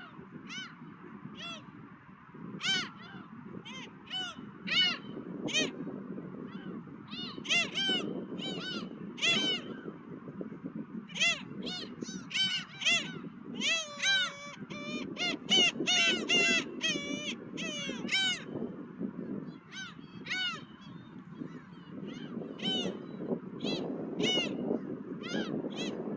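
Seagulls calling: many short, arched cries, often overlapping and thickest in the middle stretch, over a steady low rumble of wind.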